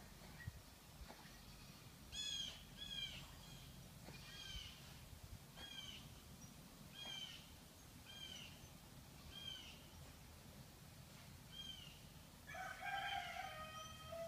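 Faint short, high-pitched chirping animal calls, each one dipping in pitch, repeating about once a second, with a louder, fuller call near the end.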